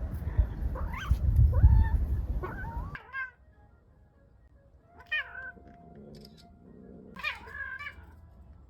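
Domestic cats yowling and meowing in a conflict: several wavering calls over heavy low rumbling noise for the first three seconds, then, after a sudden cut, two separate meows about two seconds apart.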